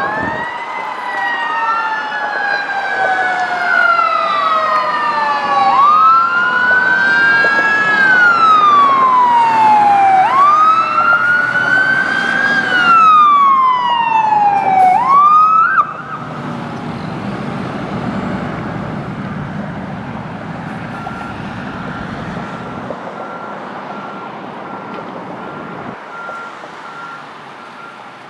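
Fire engine wail siren rising and falling slowly and repeatedly, with a second siren overlapping at first. The siren cuts off suddenly about 16 seconds in, leaving the fire truck's engine running, with a faint rapid beeping near the end.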